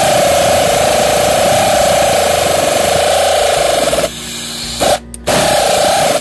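Power ratchet motor whining steadily as it runs bolts into the bottom of the transmission, then stopping about four seconds in and restarting in two short bursts near the end.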